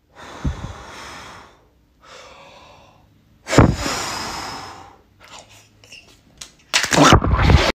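A man breathing out hard in three long, noisy puffs, the strongest starting sharply about three and a half seconds in, then a few small clicks and a loud, noisy burst of about a second near the end as he bites into a green balloon-like ball.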